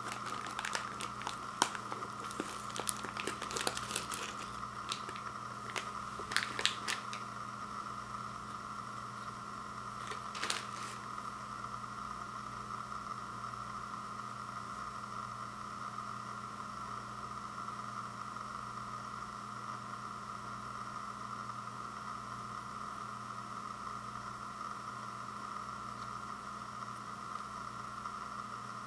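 Foil-lined Oreo Thins cookie pack crinkling and crackling as cookies are pulled out of it, busiest over the first seven seconds with one more short crackle about ten seconds in. After that only a steady background hum remains.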